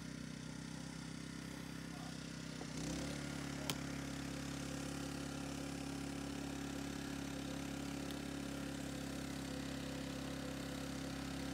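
Steady low hum of an engine or motor running, its pitch shifting slightly about three seconds in, with a faint click or two.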